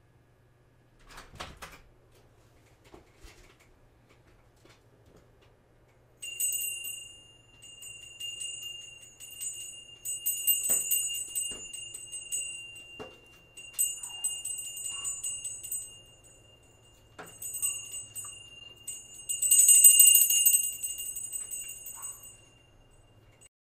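A small jingle bell jingling in repeated bursts, starting about six seconds in and loudest near the end, with a few light knocks in between. A dull thump comes about a second in.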